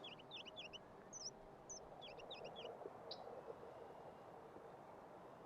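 Ruby-crowned kinglet singing faintly: quick clusters of short, hooked high notes over about the first three seconds, then a single note. The song is played slowed down to match the slow-motion footage.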